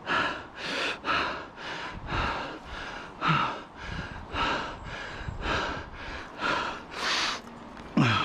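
A man panting hard, out of breath after running up a long steep flight of steps: heavy breaths in and out about twice a second, with a short voiced grunt near the end.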